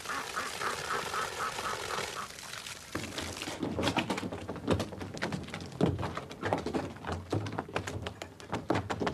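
Poitín wash glugging and rushing as it pours out, about five glugs a second. After about three and a half seconds the pouring stops and there are footsteps on gravel and knocks and thuds of barrels and plastic containers being handled.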